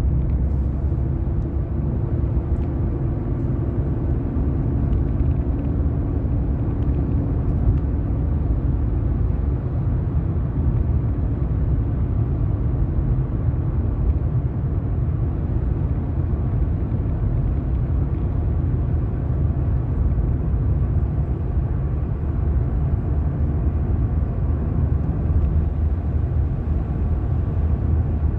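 Steady in-cabin drive noise of a car on the road: a low rumble of engine and tyres. A faint humming tone sits over it in the first third and fades out.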